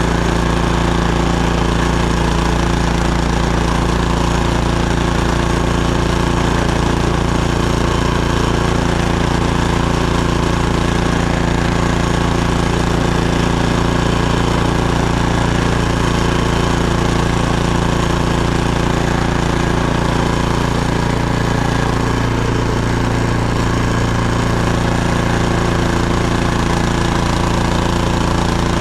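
Gas snowblower engine running steadily and loudly, with a slight shift in its low tone about three-quarters of the way through.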